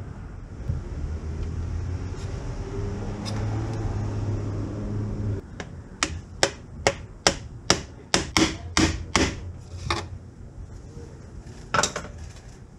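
A hammer striking the end of a 1-inch PVC pipe used as a driver to seat a new fourth gear seal in a Harley four-speed transmission: about a dozen sharp taps at two to three a second starting about halfway through, then one last tap near the end. A low steady hum runs under the first half.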